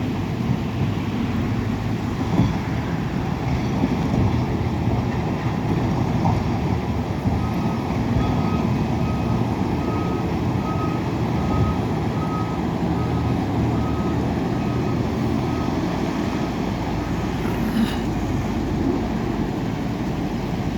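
Diesel earthmoving machinery (bulldozer and backhoe loaders) running steadily under load. Partway through, a reversing alarm beeps at an even pace, a little under two beeps a second, for several seconds, then stops.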